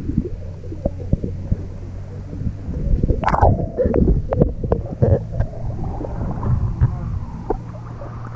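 Sea water sloshing and gurgling against an action camera's housing as it bobs at the surface, muffled when it dips under, with a flurry of louder splashes about three to five seconds in.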